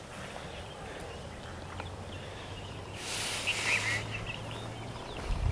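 Quiet outdoor ambience with a low steady hum, and a bird chirping briefly over a rush of hiss about three seconds in.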